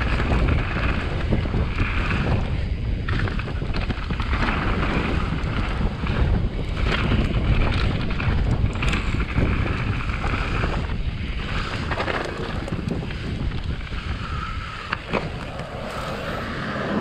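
Wind buffeting the microphone of a mountain bike's POV camera on a fast descent, over the rumble of tyres on dirt, with scattered clicks and rattles from the Specialized Enduro. The rush eases a little near the end.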